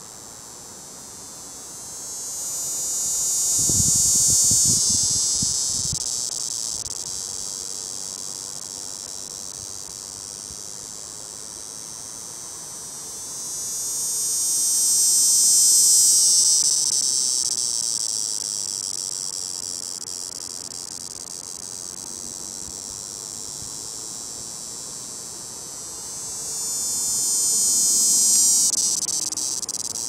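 A cicada singing at close range: a continuous high buzz that swells loud three times, about every twelve seconds, and eases back to a steadier, quieter buzz between swells.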